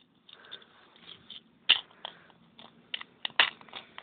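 Small plastic Mega Bloks crate and lid being handled: a run of irregular light clicks and taps, with faint rustling between them.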